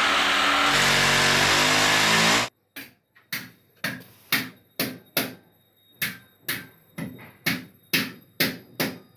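Electric drill boring into a masonry wall with a steady motor whine, stopping abruptly about two and a half seconds in. Then a hammer strikes about fourteen times, roughly two blows a second with a short metallic ring, fixing a split AC's metal mounting plate to the wall.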